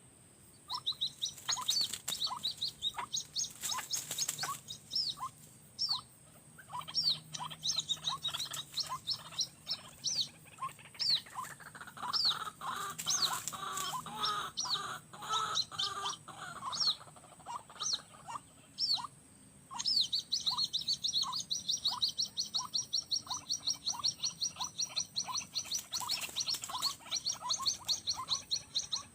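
White-breasted waterhens (ruak-ruak) calling: short calls repeated about once or twice a second. They thicken into a dense run of calls midway, and a rapid, high-pitched chattering trill joins from about two-thirds of the way in.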